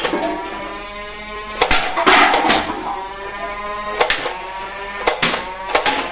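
Toy guns firing: about seven sharp cracks, a pair near two seconds in and a cluster near the end, over a steady electronic drone.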